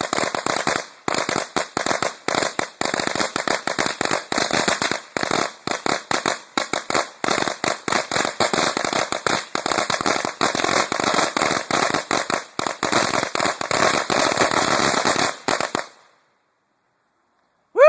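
A roll of 1,000 Rising Sun firecrackers going off in a rapid, irregular string of sharp bangs, which stops abruptly near the end.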